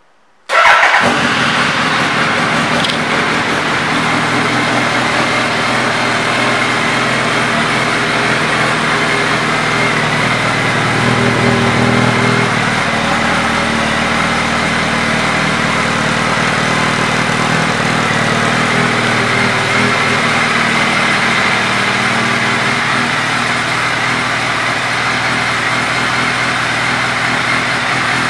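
2008 Suzuki B-King's 1340 cc inline-four, fitted with a Yoshimura exhaust, starting about half a second in and catching at once. It then idles steadily, with a brief rise in revs around eleven seconds in.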